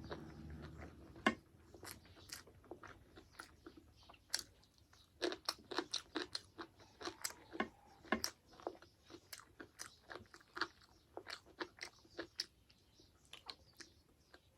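Close-up chewing and crunching of food by mouth, with a quick, irregular run of wet clicks and crunches.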